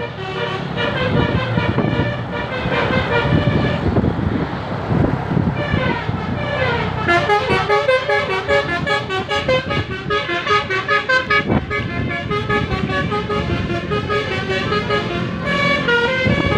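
Telolet basuri musical horn playing a quick tune, its notes stepping from pitch to pitch several times a second over road and engine noise. There is a short run of notes at first, a lull about four seconds in, then a longer, denser run from about seven seconds in.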